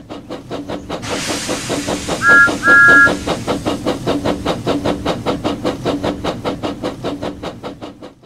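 Steam locomotive sound effect: rhythmic chuffing at about five or six beats a second over hissing steam, with two short toots of a two-note steam whistle a little over two seconds in. The chuffing fades away near the end.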